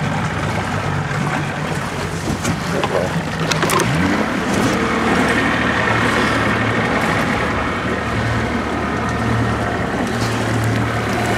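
Small boat's motor running at low speed, picking up a little about four seconds in, with water washing along the hull.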